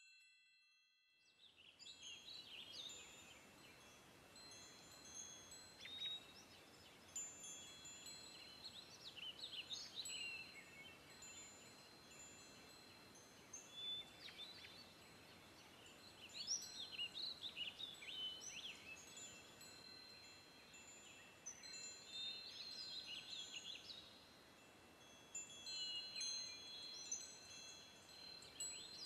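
A bell-like chime rings right at the start, then faint outdoor ambience fades in: birds chirping in short, gliding calls over steady chime-like ringing tones.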